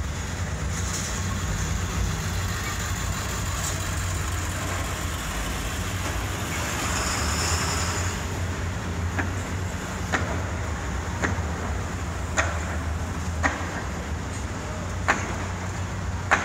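Street traffic beside a construction site. A steady low engine hum runs throughout, and a vehicle passes about seven seconds in. From about nine seconds, short sharp knocks come roughly once a second, like construction hammering.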